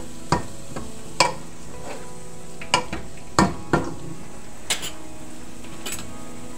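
Kitchen utensils clacking against pans while ground beef cooks and ripe plantains fry in oil. A wooden spatula stirs the meat and a fork turns the plantains, giving about seven sharp knocks spread unevenly over a steady frying sizzle.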